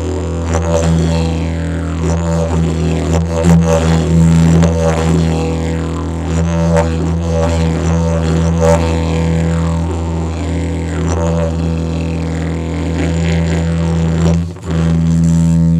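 Aspen didgeridoo in E (E2) played as a continuous low drone, its upper overtones sweeping up and down with rhythmic accents. The drone drops out for a moment near the end and comes straight back.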